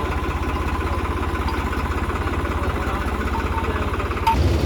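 Heavy diesel engine running steadily with a fast low pulse, straining to pull a stuck harvester. About four seconds in there is a short click, and the engine gets louder and deeper.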